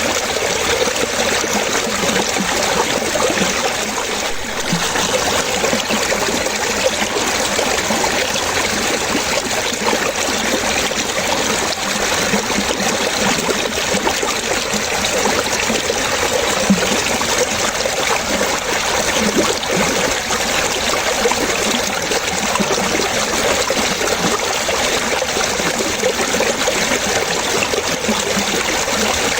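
Water running and trickling steadily, with a continuous flowing hiss and many small splashes and bubbling blips.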